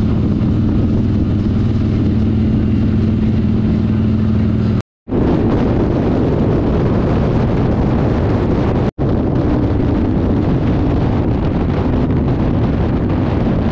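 Onboard sound of a Harley-Davidson V-twin motorcycle cruising on open road: a steady engine drone under heavy wind rush. It comes in three stretches, cut apart by brief dropouts about five and nine seconds in.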